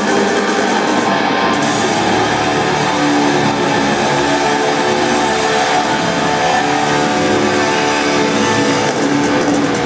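A live rock band playing loud in an arena, picked up by a phone's microphone from the stands. Electric guitar holds long notes over the band.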